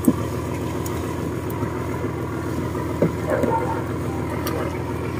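A fishing boat's engine running steadily, with a few short knocks as the crew handle the net and its plastic floats.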